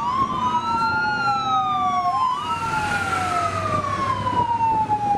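Fire-engine siren wailing. Two overlapping electronic tones slowly rise and fall in pitch, one climbing as the other drops.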